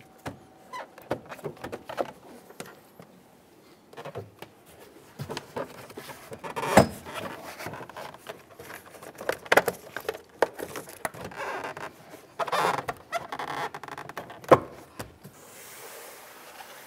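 Plastic interior door panel of a Mercury Grand Marquis being pushed and slid onto the metal door: scattered knocks, clicks and scraping as its hooks are worked into place, with a couple of sharper knocks partway through.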